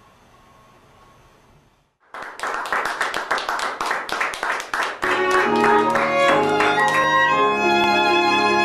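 Faint hiss, then after about two seconds string music with violin and cello comes in: first rapid short bowed strokes, then from about five seconds sustained notes held in chords.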